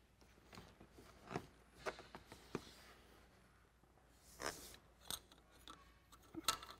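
Faint handling noises from a black corrugated plastic hose being moved and guided into place: scattered light clicks and rubs, with a longer scrape about four and a half seconds in.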